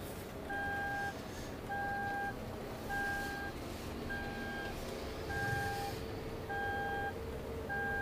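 Car warning chime beeping at a steady rate, each beep about half a second long and coming roughly every 1.2 seconds, over engine and road noise inside the Toyota's cabin.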